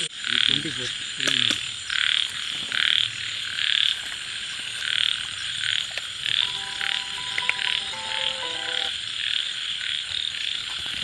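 A chorus of frogs croaking outdoors, loud calls repeating about once or twice a second. A steady high-pitched chirring of insects runs beneath.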